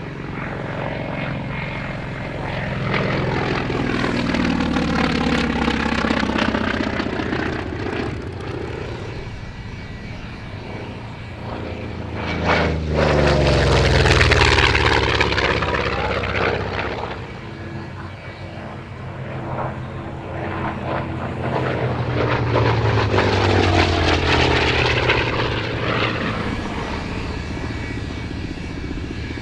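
World War II Navy radial-engine propeller warbirds making three low fly-bys. Each engine sound swells and drops in pitch as the plane passes. The loudest pass, about halfway through, comes from the F6F Hellcat flying close.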